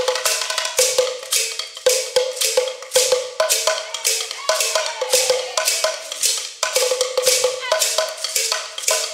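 Sekere, beaded gourd rattles, shaken in a fast steady rhythm by several players, over ringing knocks from a wooden drum struck with a stick.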